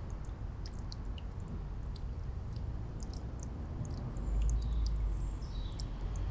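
Outdoor city ambience: a steady low rumble that grows louder about four seconds in, with scattered short high chirps and ticks and a falling whistle about five seconds in.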